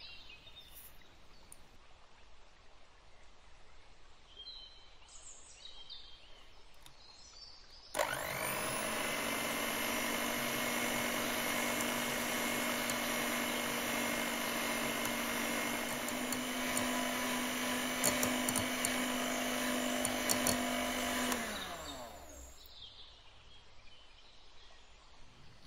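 Electric hand mixer whipping cream in a glass bowl: the motor starts about a third of the way in, runs steadily for about 13 seconds, then winds down and stops, the cream now whipped to peaks that hold their shape. A few light clicks of the beaters against the glass come near the end of the run.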